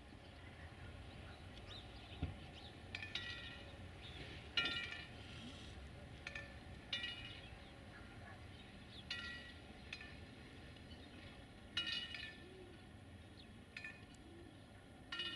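Short, sharp bird calls, repeated irregularly every second or two, over a faint low background rumble.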